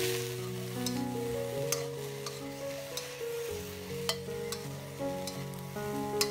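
Cauliflower florets dry-frying in a wok with a faint sizzle while being stirred, the spatula clicking against the pan about once a second; the moisture is cooking out of the florets as they soften. Background music plays over it.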